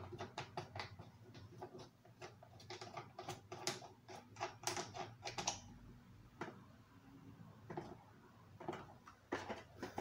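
Irregular light clicks and taps of plastic fan parts being handled and fitted together by hand on an Arno fan's motor assembly, thinning out in the second half.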